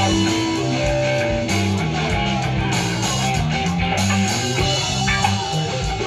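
Live rock band playing: electric and acoustic guitars strumming over a moving bass line and a steady low beat.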